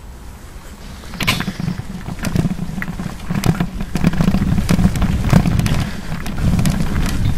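Bicycle riding over a rough dirt and gravel path: a low rolling rumble with irregular rattles and knocks as it jolts over bumps, getting louder about a second in.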